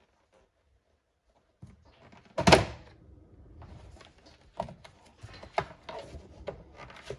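A single loud thunk, then a run of irregular knocks and rattles: steel roll cage tubing being worked into a car's interior and bumping against the body.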